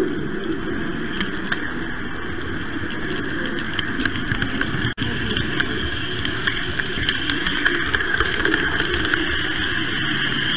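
Model train running along its track, heard from on board: a steady mechanical whir of motor and gearing with frequent small clicks. The sound drops out for an instant about five seconds in.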